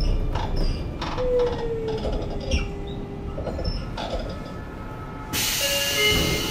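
Onboard sound of a Sotetsu 8000 series electric train with a Hitachi IGBT-VVVF inverter: a slightly falling whine with scattered clicks. About five seconds in, a sudden louder rush of running noise starts, carrying steady high whining tones.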